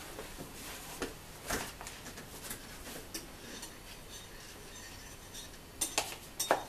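A metal spoon scraping and tapping against bowls while ingredients are scooped out for weighing: a few scattered light clicks and scrapes, the sharpest two near the end.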